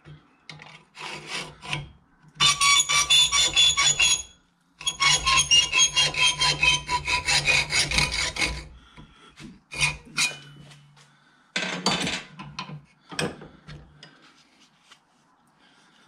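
Hand hacksaw cutting a thin metal strip held in a bench vise: two long runs of quick rasping strokes, with a faint ringing from the metal, then a few short, scattered strokes toward the end.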